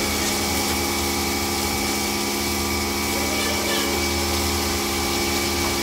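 Pork pieces sizzling in a wok of deep-frying oil, over a steady loud machine hum from the kitchen range.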